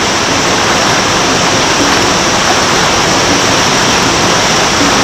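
Steady, loud rush of flowing river water.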